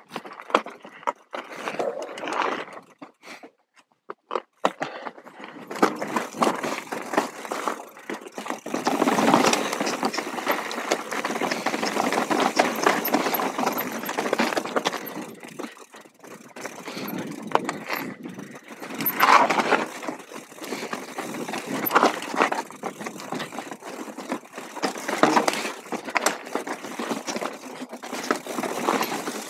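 Full-suspension mountain bike riding down a rocky trail: tyres rolling over stones with the bike rattling and clicking. A few scattered clicks for the first seconds, then continuous rough rolling noise from about six seconds in.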